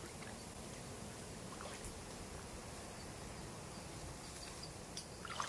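Steady, low outdoor background noise with a few faint clicks, a small cluster of them near the end.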